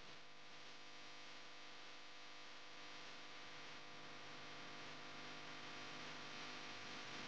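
Faint steady hum and hiss, unchanging throughout, with no distinct sounds.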